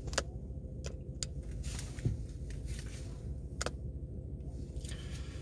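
Low steady rumble inside a car cabin, with a few sharp clicks and taps from a hand handling the phone that is recording.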